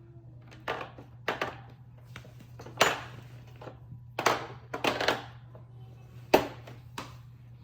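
Carbide hole saws and their quick-connect mandrel being handled, metal parts clinking and clicking together in about eight sharp separate knocks, over a steady low hum.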